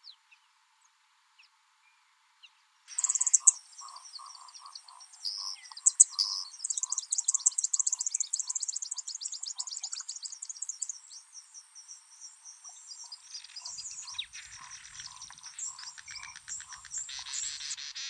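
Near silence for about three seconds, then a nesting colony of southern masked weavers and white-winged widowbirds calling together: fast, buzzy repeated zeh-zeh-zeh calls and twittering chatter, with a pulsing lower note underneath.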